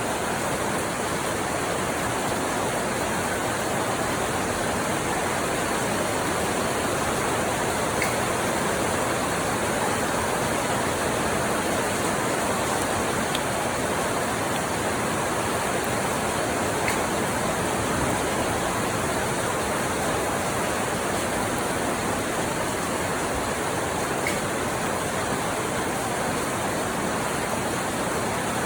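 Steady rain falling, an even hiss with an occasional faint tick of a drop.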